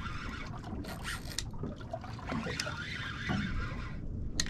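Fishing line snapping along a pinky snapper's dorsal spines during the fight, heard as sharp snaps through the rod, one about halfway through and a sharper one near the end, over steady wind and water noise. The snaps are the sign of the line wrapped around the fish's fin spines, which soon cuts the line off.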